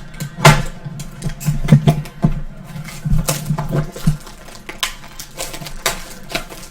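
Irregular light clicks and clatter of small hard items being handled on a table, a quick run of sharp taps.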